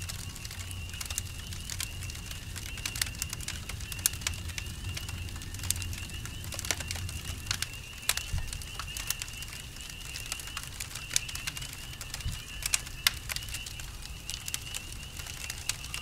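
Campfire crackling, with sharp irregular pops of burning wood over a steady low rumble. Crickets keep up a continuous high trill throughout.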